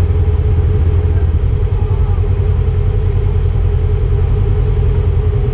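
Side-by-side UTV engine idling steadily, a constant low rumble with no revving.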